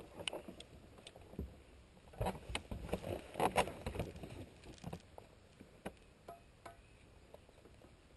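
Handling sounds from a just-landed bass and tackle on a boat deck. A flurry of knocks, clicks and rattles comes about two to four seconds in, then scattered single ticks while the hooks are worked out of the fish's mouth.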